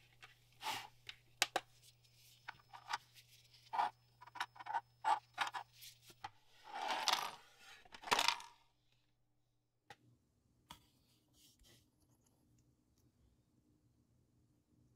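Hard cured-resin pieces clicking and tapping against a tabletop and each other as they are handled, with a longer scrape about seven seconds in.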